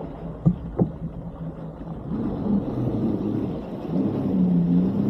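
Personal watercraft engine running and revving up under load as the jet ski is worked off a sandbar, its pitch wavering and getting louder twice. Two sharp knocks come about half a second in.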